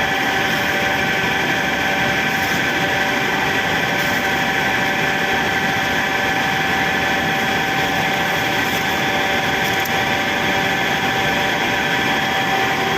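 Steady drone of running industrial machinery, with a constant whine over a broad hum and no change in pitch or level.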